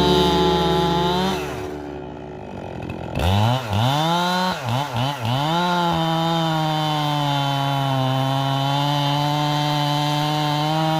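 Echo two-stroke chainsaw at high revs; the throttle is let off about a second and a half in and the engine winds down, then it is revved back up with several quick blips and held steady at high speed.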